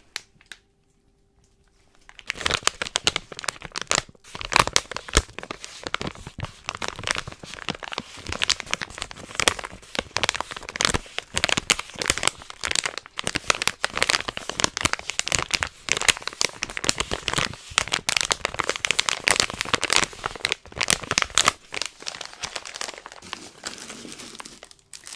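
A plastic gummy-candy pouch crinkled and handled right up against a microphone. It is a dense run of irregular crackling that starts about two seconds in, after a brief near-quiet moment, and eases off near the end.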